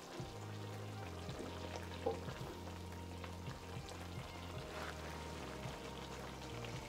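Soft background music with held low notes that change every second or so, over the faint simmering of a tomato sauce in a wok and light scrapes and taps of a wooden spatula stirring it.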